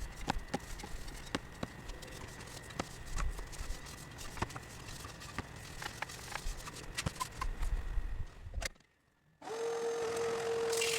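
Irregular light clicks and taps, as of small tools and a stain can being handled. About 8.5 seconds in the sound cuts out briefly, then a steady mid-pitched hum starts and holds.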